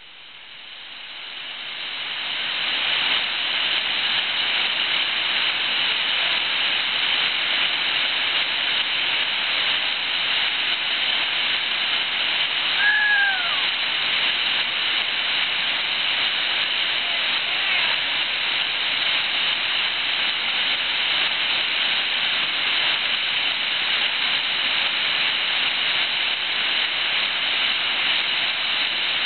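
Whitewater of Stateline Falls on the Watauga River pouring over a rocky ledge: a steady rushing roar that fades in over the first few seconds. A short high call, falling in pitch, cuts through once about halfway.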